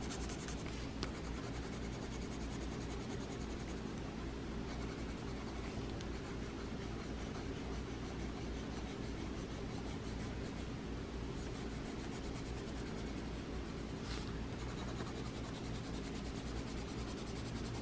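Colored pencil scratching steadily across paper in long shading strokes, with a faint low hum underneath.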